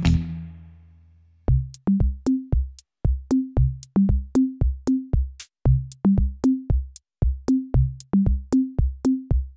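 Background music: after a fading chord, an electronic drum beat of bass-drum kicks and short pitched drum hits comes in about a second and a half in and keeps a steady rhythm.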